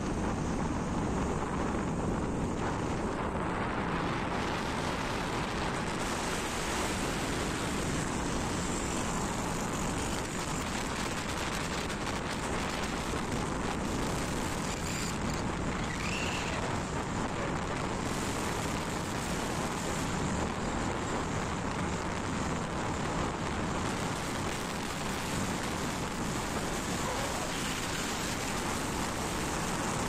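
Steady road and wind noise of a vehicle driving along.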